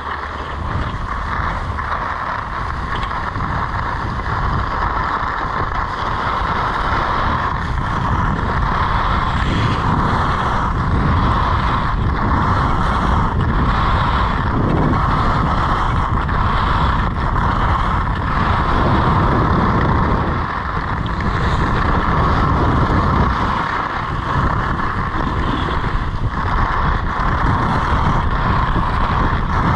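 Skis scraping and hissing over hard-packed piste snow while skiing downhill, with wind rushing over the camera's microphone. The sound builds over the first several seconds as speed picks up, then stays steady with brief dips.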